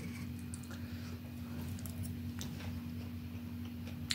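Steel fork cutting into a soft egg roll and clicking against a steel plate: scattered faint taps, with a sharper click about two and a half seconds in and another at the very end. A steady low hum runs underneath.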